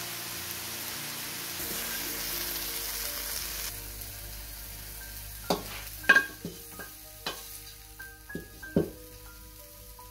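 Chicken and dragon fruit pieces sizzling in oil in a wok as they are stir-fried, for about the first four seconds, over background music. After that the music carries on alone, with several sharp clicking notes.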